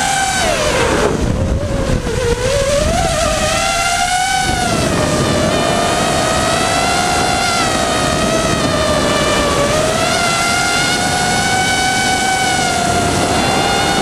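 Electric motors and propellers of a small multirotor drone whining as heard from its onboard camera, the pitch dropping about a second in and climbing back as the throttle changes, then wavering up and down, with air rushing past the microphone.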